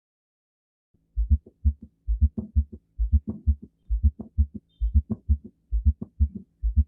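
Recorded heart sounds with a fourth heart sound (S4, atrial gallop): low thuds in a galloping rhythm starting about a second in, the extra sound falling late in diastole just before the first heart sound. An abnormal finding, usually a sign of diastolic heart failure.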